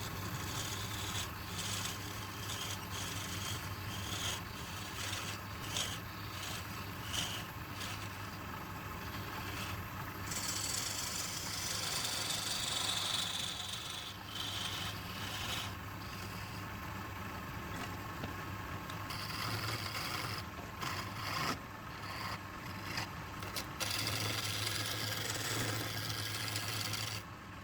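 Wood lathe running with a steady motor hum while a turning tool scrapes and cuts the spinning wood, with uneven rasping and occasional clicks.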